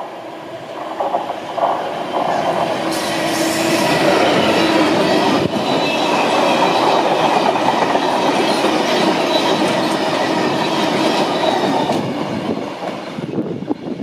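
Class 66 diesel freight locomotive and its long train of bulk-powder tank wagons passing at speed, the wheels clattering over the rails. It builds as the locomotive comes through, holds loud as the wagons rush past, and fades near the end as the tail of the train goes away.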